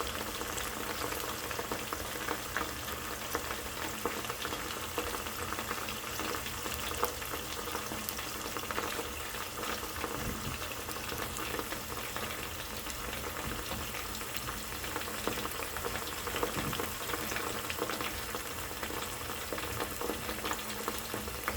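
Broccoli deep-frying in hot oil in a small metal Sierra cup: a steady sizzle dotted with many small crackles and pops.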